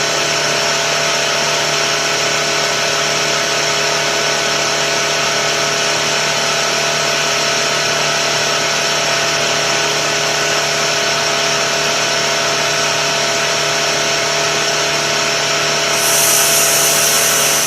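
Tuxing four-stage high-pressure air compressor running steadily under load as it fills a tank, with a constant mechanical hum. About a second and a half before the end, a loud high hiss joins in as the pressure relief valve on the compressor goes off.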